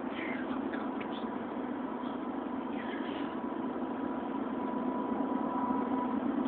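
A steady low droning rumble with a thin steady tone above it, heard as coming from overhead; its source is unknown. A few faint high chirps sound near the start and again about three seconds in.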